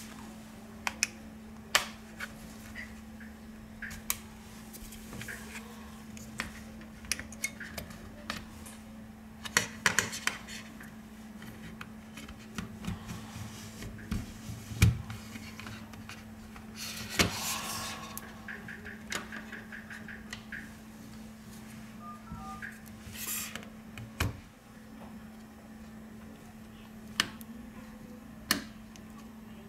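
Black plastic opening pick and spudger clicking and scraping against an HTC A9 smartphone's frame and parts as it is pried apart. Scattered sharp clicks and a few longer scrapes sound over a steady low hum.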